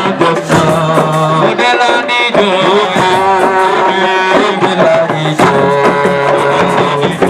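Loud music with hand drumming and a melody of held, wavering notes.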